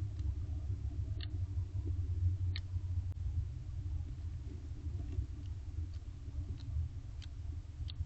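A steady low rumble with about half a dozen faint, scattered clicks.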